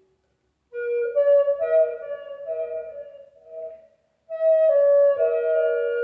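Native American flute played solo: after a short pause, a phrase of held notes stepping up and down, then a brief break and a second phrase that carries on.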